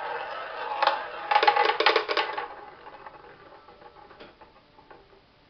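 Ball spinning in a tabletop roulette wheel: a steady rolling whir, then a quick run of loud clicks about one to two and a half seconds in as the ball drops and clatters among the pockets. A few fading ticks follow as the wheel slows and the ball settles.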